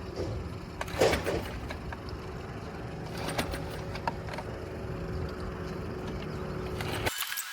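Dinghy outboard motor running steadily, with a few knocks, the loudest about a second in; the motor sound stops abruptly near the end.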